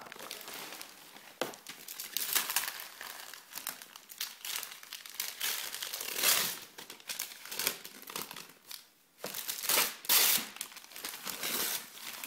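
Christmas wrapping paper being crumpled and torn by hand as a present is unwrapped, in irregular rustles and rips with a short pause about three-quarters of the way through.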